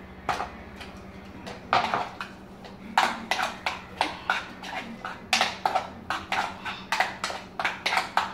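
Spoon stirring mashed potatoes in a metal saucepan, knocking and scraping against the pan. The strokes are scattered at first and settle to about three a second from about three seconds in.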